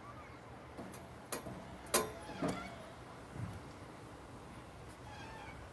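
Quiet outdoor playground ambience with two sharp knocks, the second louder, and faint distant children's voices.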